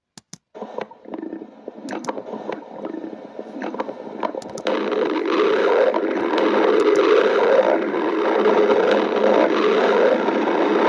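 Stomach growling and gurgling: a continuous low rumbling with scattered clicks that starts just after two brief clicks and gets clearly louder about halfway through.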